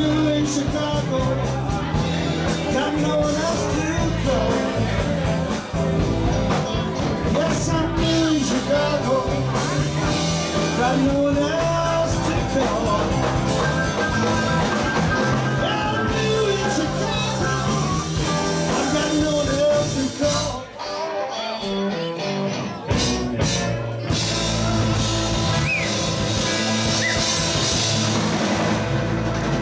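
Live rock band playing through amplifiers: electric guitars, bass and drum kit, with singing. About two-thirds of the way through, the bass and drums drop out for a couple of seconds, then the full band comes back in.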